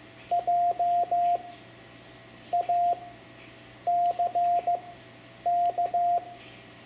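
Morse code (CW) sent by hand as a single steady beeping tone, spelling the word JACK in four letter groups: dit-dah-dah-dah, dit-dah, dah-dit-dah-dit, dah-dit-dah.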